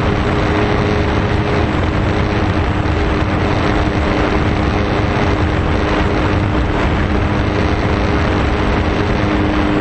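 Electric motor and propeller of an RC foam plane running at a steady pitch, under loud, steady wind rush on the microphone.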